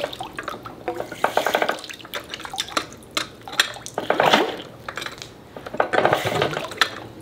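Air-cooled Kohler diesel engine working submerged in water, giving off irregular bursts of watery gurgling and clattering, some with a fast even pulsing. It sounds as though water has got inside the engine.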